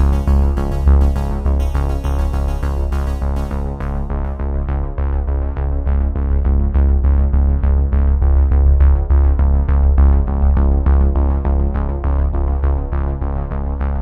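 Background electronic music with a steady beat and a strong bass line.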